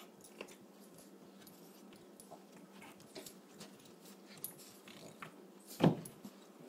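Boston Terrier puppy playing with a baseball bat toy on carpet: soft scuffling and light knocks, and one loud thump near the end.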